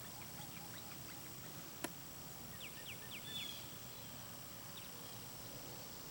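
Faint outdoor ambience at a pond in the evening. There is a single click a little under two seconds in, then a few short, quick bird chirps about halfway through.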